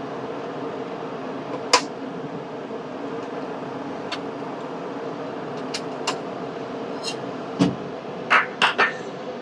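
Metal clicks and knocks as the rotary chuck's jaws are loosened with a T-handle chuck key and a stainless steel tumbler is freed and lifted out. A sharp click comes just under 2 s in, and a cluster of knocks near the end. A steady machine hum runs underneath.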